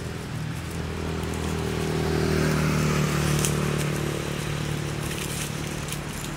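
A motor's steady hum that swells to its loudest about halfway through and then eases off, like a vehicle going by, with light crackles on top.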